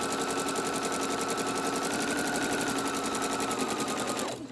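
Viking electric sewing machine running at a steady speed, stitching a seam with a rapid, even needle clatter over its motor whine; near the end the motor winds down and stops.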